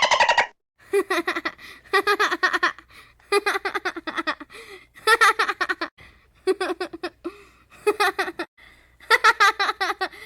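A young child giggling in about eight short bursts of quick, pulsed laughter, separated by brief pauses: a stock cartoon giggle sound effect.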